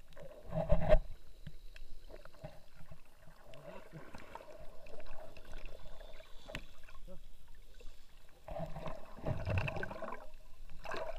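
Muffled water sound heard underwater: sloshing and gurgling with scattered clicks as swimmers kick and splash around the camera, with louder rushing bursts about a second in and again near the end.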